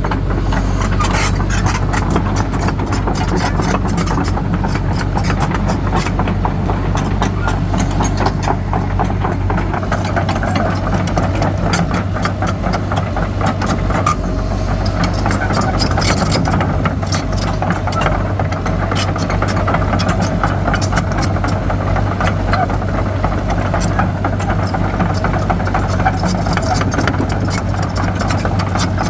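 Hydraulic excavator's diesel engine running steadily with a constant low hum, with many short clicks and rattles over it.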